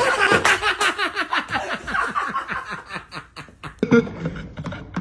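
A person laughing hard in a fast run of short laughs that tails off after about three and a half seconds.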